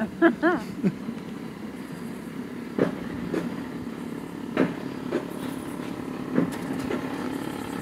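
Mountain coaster cart rolling along its steel rail track: a steady rumble with a few sharp clacks from the track now and then.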